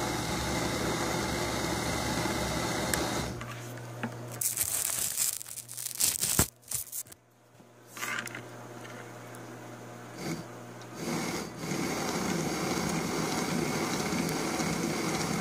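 Bachmann 1:20.3 Heisler powered truck running under power: its small electric motor and gear drive whir steadily, stop about three seconds in, and after a few seconds of clicks and handling knocks a truck runs steadily again for the last few seconds.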